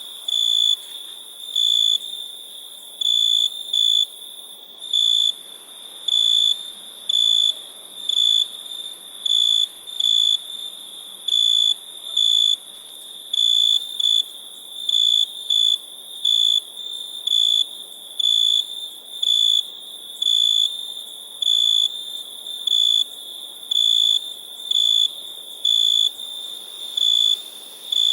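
Crickets chirping at night: a steady high-pitched trill with louder chirps coming a little more than once a second, slightly unevenly, over a constant higher hiss of other insects.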